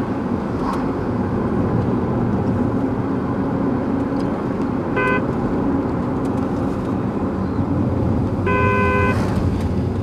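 Steady road and engine noise inside a moving car's cabin. Over it come two recorded car-horn honks played from a phone through a Bluetooth speaker in the back of the car: a short toot about five seconds in and a longer honk near the end.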